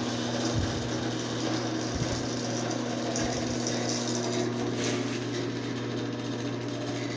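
Craftsman garage door opener running with no door attached, its motor humming steadily while the trolley travels along the rail and rattles.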